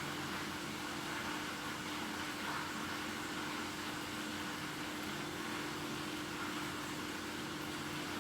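Steady background hum and hiss with a single low steady tone, unchanging throughout: room noise of the kind a fan or air conditioner makes.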